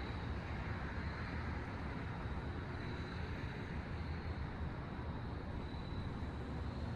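Steady outdoor background noise, mostly a low rumble, with a faint steady high tone that fades in and out.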